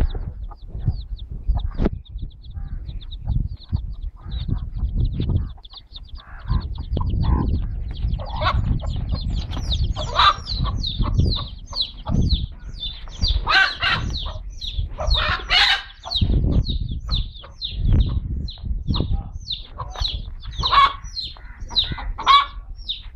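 Chicks peeping in a steady stream of short high calls, while an agitated mother hen clucks and, from the middle on, lets out several loud squawks as she defends them.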